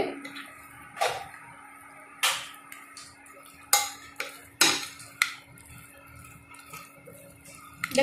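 A handful of separate clinks and knocks, about five clear ones a second or so apart, as a hand and spoon mix raw chicken and chopped vegetables in a glass baking dish, over a steady low hum.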